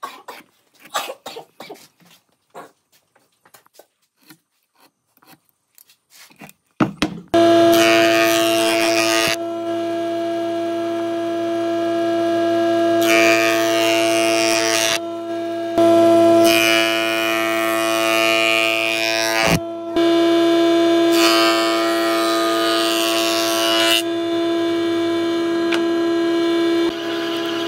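Light taps and clicks of a pen and steel ruler marking a board. About seven seconds in, a jointer-planer starts up loud with a steady whine, and four passes of wood over its cutterhead each add a rush of cutting noise lasting two to three seconds.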